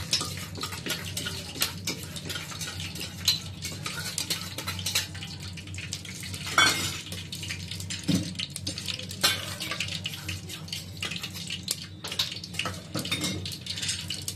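Mustard oil heating and crackling in an aluminium pot, with a metal spoon clinking and scraping against the pot; the loudest clink comes about six and a half seconds in.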